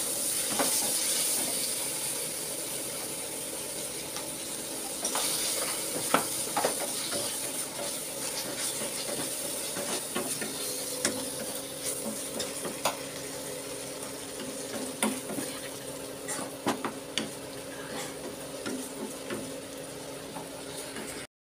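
Chopped onions and tomatoes with ginger-garlic paste sautéing and sizzling in a non-stick frying pan, stirred with a spatula that scrapes and taps against the pan. The sizzle is loudest at the start and eases a little as it goes on.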